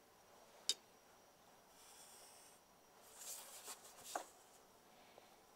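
Faint handling sounds of a plastic ruler and paper being shifted on a desk: a sharp click under a second in, then a short scraping rub about three seconds in that ends in a light tap.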